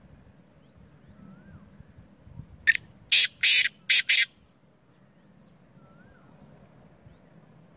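Black francolin giving its call once: a loud, harsh, grating phrase of about five rough notes lasting about a second and a half, near the middle. Faint chirps of other birds are heard behind it.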